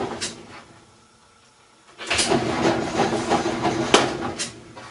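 Whirlpool direct-drive top-load washer agitating with an empty tub: the motor hums steadily under a clatter of knocks from the agitator drive. It stops about half a second in and starts again about two seconds in. Agitating without any water is the symptom that points to the water level switch.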